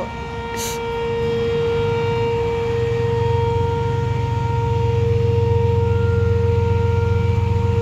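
Whelen Vortex rotating electronic outdoor warning siren sounding a loud, steady single-pitch tone during its scheduled test. A low rumble builds underneath it about three seconds in.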